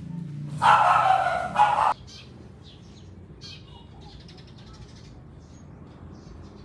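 A loud animal call lasting just over a second, in two parts, followed by faint scattered bird chirps.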